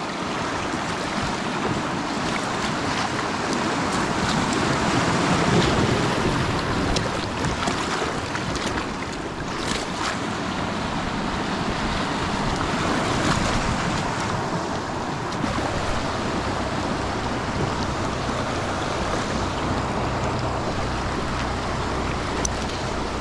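Steady rush of creek water around a small boat drifting downstream, with some wind on the microphone.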